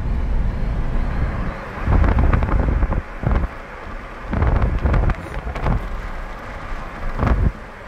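Wind buffeting the microphone in irregular gusts, over the steady rumble of a car driving along the road.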